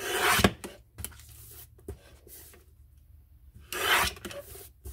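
Paper trimmer's sliding blade cutting through card stock: two short rasping strokes, one at the start and another about four seconds in.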